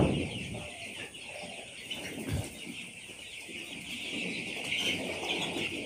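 A flock of young chicks, about two weeks old, peeping constantly in many overlapping high chirps. A loud rustling thump comes right at the start, and a softer low thump about two seconds in.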